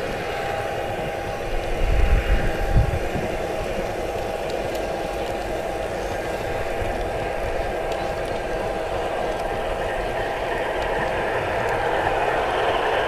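G-scale model Santa Fe F-unit diesel locomotive running along garden track with a steady mechanical hum, a little louder near the end. A few low thumps come about two seconds in.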